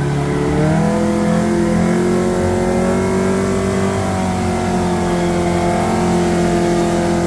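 Off-road 4x4's engine running at steady raised revs. Its pitch steps up about a second in and then holds.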